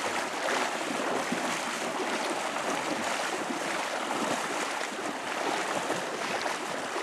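Shallow river current rushing and rippling steadily, an even wash of water noise.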